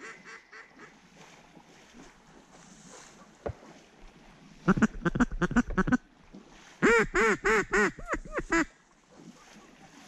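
Duck quacking in rapid runs: a faint series at first, another run about five seconds in, then a louder run of about eight quacks around seven seconds in, the last few shorter. A brief knock comes midway.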